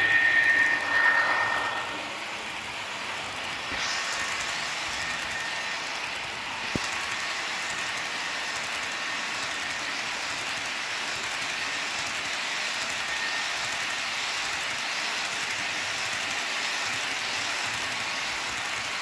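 HO-scale model train rolling past close by. The locomotive goes by in the first couple of seconds, louder and with a steady pitched tone, then a string of hopper cars follows with an even rolling noise of wheels on the track. There is a single sharp click about seven seconds in.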